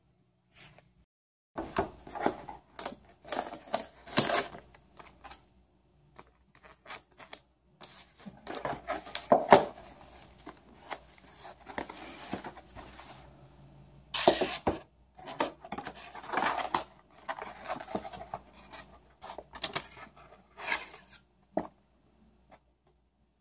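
Paper crinkling and rustling in irregular bursts as folded kraft-paper takeout boxes are unsealed and pulled open by hand, their sticker seals torn loose.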